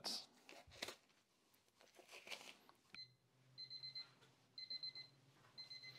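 Kitchen timer going off: clusters of rapid high-pitched beeps about once a second, starting about halfway through. It signals that the set roasting time is up.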